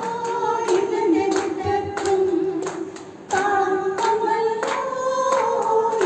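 A group of people singing a song together while clapping in time, about three claps a second, with a short break in the singing near the middle.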